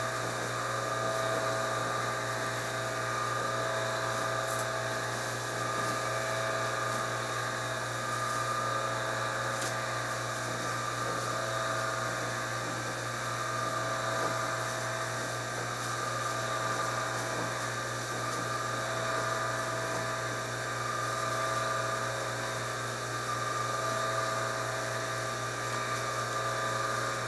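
An electric machine motor running steadily with a whine that swells and eases about every four seconds.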